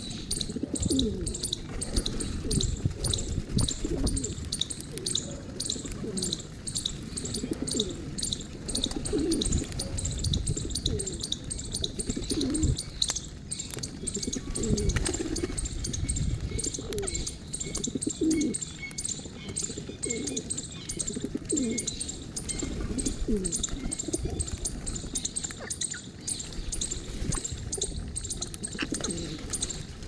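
A flock of rock pigeons feeding, cooing again and again, with wing flutters. Behind them a high chirp repeats steadily, about three times a second.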